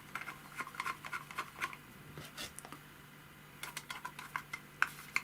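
Scattered small metallic clicks and taps in two short clusters as the hand drive of a Podolsk hand-crank sewing machine is fitted back on and its screws are tightened with a screwdriver.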